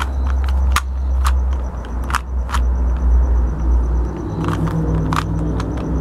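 Plastic Rubik's Cube layers being twisted through an algorithm: a series of short, sharp clicks, several a second at times, over a loud steady low rumble.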